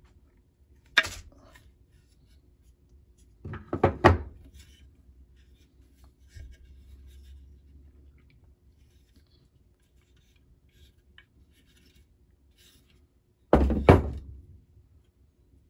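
Knocks and thuds from a Carcano M91 rifle's wooden stock and parts as they are handled and set down on a wooden workbench. There is one sharp knock about a second in, a cluster of thuds around four seconds, and a heavier double thud near the end.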